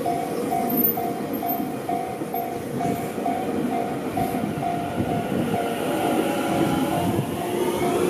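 An electric commuter train on the Tobu Tojo Line passing close by at a level crossing, its wheels rumbling steadily over the rails. The crossing's warning bell dings about twice a second throughout, and a rising whine comes in near the end.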